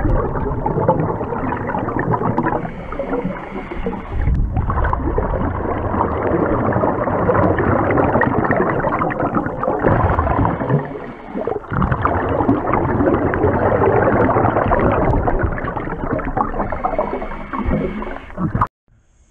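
Muffled underwater rushing and gurgling during a scuba drift dive, heard through the camera's waterproof housing: water and bubbles, loud and steady with a couple of brief dips. It cuts off suddenly near the end.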